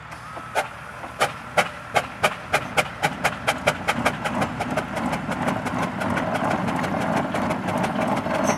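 1912 Aveling & Porter steam roller's chimney exhaust beats as it sets off, working at a low 100 lb steam pressure. Sharp separate chuffs start about half a second in and come quicker and quicker, then run together into a fast, continuous beat about halfway through.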